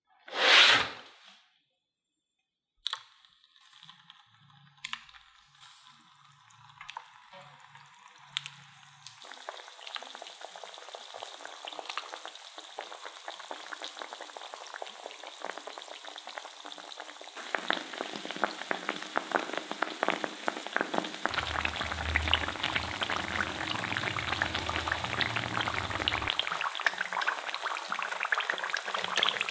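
Potato-and-corn-starch spirals deep-frying in a pan of oil: a dense sizzle full of crackling pops that starts about a third of the way in and grows louder past the middle. Near the start there is a short, loud rush of noise, followed by a few soft clicks.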